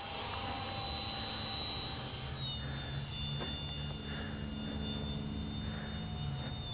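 Radio-controlled Phase 3 F-16 model jet flying high overhead, its steady high whine heard from afar, the pitch dropping slightly about two and a half seconds in.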